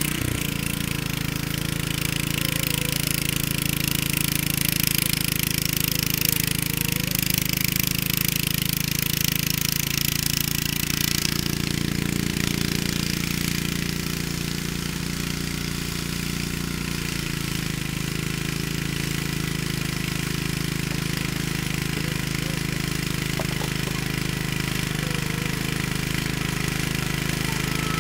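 Troy-Bilt Horse tiller's 8 hp Kohler Magnum single-cylinder engine running steadily under load on propane while the tines churn through turf and soil.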